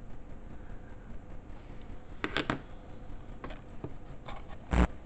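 A few scattered clicks and knocks over a low steady hum, with one louder thump near the end.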